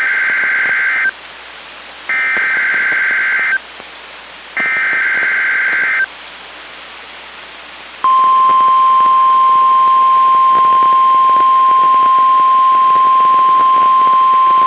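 NOAA Weather Radio Required Weekly Test alert as received on a Midland WR-120EZ weather radio: three bursts of SAME digital header data tones, each about a second and a half long and about a second apart. About eight seconds in, the steady 1050 Hz warning alarm tone starts and holds.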